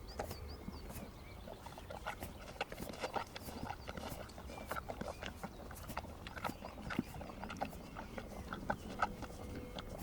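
Horses licking at a salt block: irregular small clicks and knocks, several a second, over a low steady outdoor hum.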